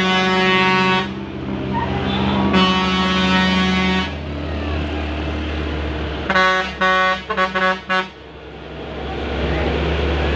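Bus 'telolet' musical air horn (basuri horn) sounding long held notes, then a quick string of short toots about six seconds in. After the toots, a bus engine's low rumble grows louder.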